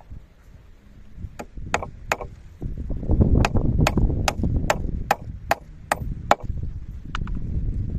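A rapid series of about a dozen sharp chopping blows with a hand tool, roughly two to three a second, each with a short ringing note, the last one coming after a short pause. Strong wind buffets the microphone underneath.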